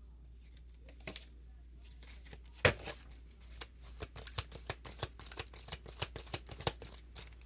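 Tarot cards being handled and shuffled by hand: a single loud snap about two and a half seconds in, then a quick irregular run of sharp card clicks and flicks, over a steady low hum.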